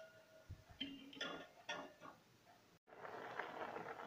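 A few faint clicks of a steel ladle against a stainless steel pot of soaked fenugreek seeds in water. Just under three seconds in, the sound cuts to a steady faint bubbling of the water boiling in the pot.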